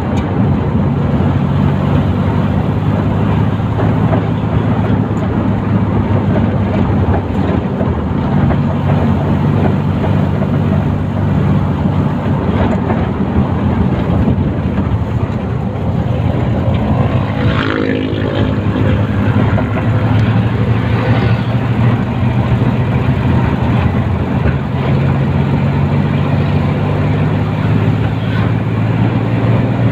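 Engine of the vehicle carrying the camera running at a steady cruise, with a low hum under dense road and wind noise. About 17 seconds in, another vehicle sweeps past with a falling pitch.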